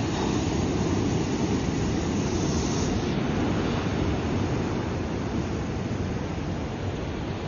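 Ocean surf: a steady, even rush of breaking waves, mostly low, with a thin higher hiss that drops away about three seconds in.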